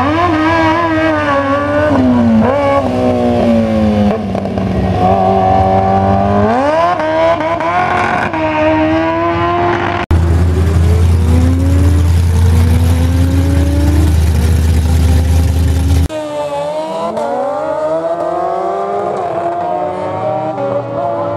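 Street-legal sport motorcycles accelerating hard on drag-strip passes, the engine pitch climbing and then dropping with each upshift. The sound breaks off abruptly twice and picks up with another run.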